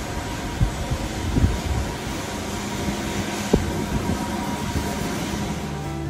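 Steady rushing outdoor noise with a low rumble, broken by a few short low thumps, as wind buffets the microphone on an open ship deck.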